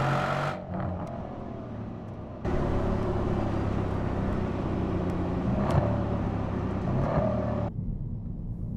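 Mercedes-AMG C 63 S Coupe's 4.0-litre twin-turbo V8 running at speed on the move, the engine note changing abruptly a few times as the sound is cut between passes. There is one short sharp crack about six seconds in.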